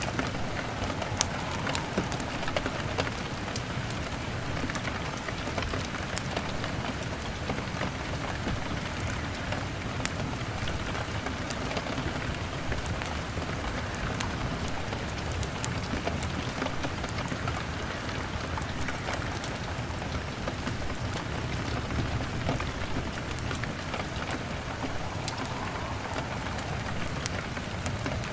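Steady heavy rain pattering on a window, with scattered sharp clicks and crackles from a log fire mixed in.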